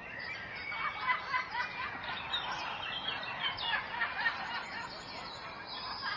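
Birds chirping and calling, with many short, quick notes overlapping and a brief high trill a little past the middle.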